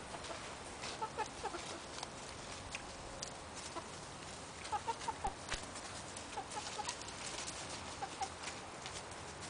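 Backyard chickens clucking, a few short notes at a time in several brief spells separated by pauses.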